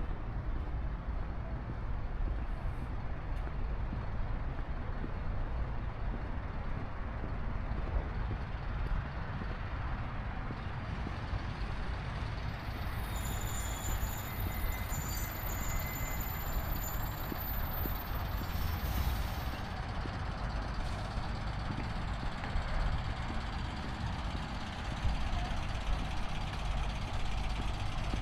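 Steady low rumble of an idling engine, with a thin high-pitched whine and faint tones for several seconds around the middle.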